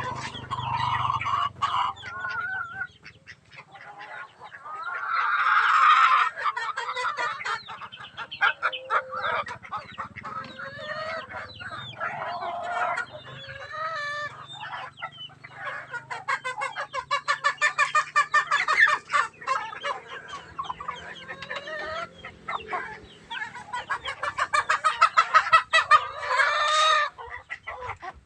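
Chickens clucking in rapid runs of calls, with louder drawn-out rooster calls about six seconds in and again near the end.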